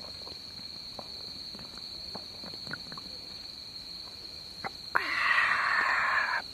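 Crickets trilling steadily at one high pitch, with a few faint clicks and taps. About five seconds in, a loud breathy hiss lasts about a second and a half, then stops suddenly.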